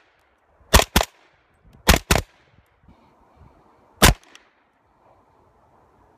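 Spike's Tactical Compressor suppressed 300 Blackout rifle firing 220-grain subsonic rounds: five shots, two quick pairs about a second apart, then a single shot about two seconds later.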